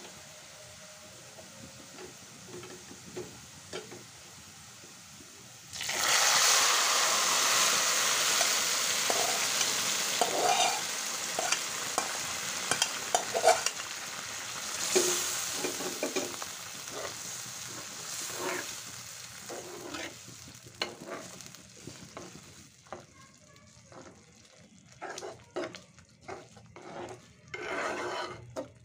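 Sliced onions and dried red chillies frying in oil in a wok, a low sizzle with a few spatula clicks. About six seconds in, a loud hiss of sizzling breaks out as the lentil dal with spinach meets the hot oil, dying down slowly over the next fifteen seconds while it is stirred. Near the end come separate spatula stirring strokes in the simmering dal.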